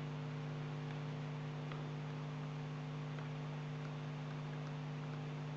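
Steady low electrical hum, like mains hum picked up by the recording setup, with a few faint ticks.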